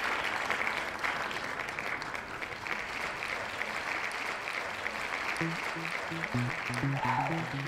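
Audience applauding as a song ends, with low plucked guitar notes starting about five seconds in.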